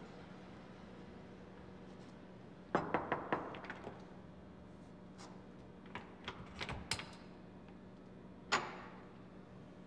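A door's lock and latch being worked by hand: a quick run of metallic clicks and rattles about three seconds in, more clicks around six to seven seconds, then one sharper clack with a short ring near the end as the door is unlatched. A steady low hum runs underneath.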